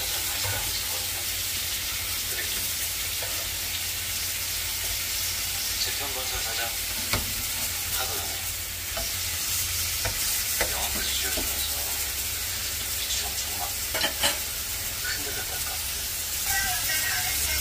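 Thin slices of pork sizzling as they fry in a ridged grill pan, with a few sharp clicks of metal tongs against the pan as the slices are turned.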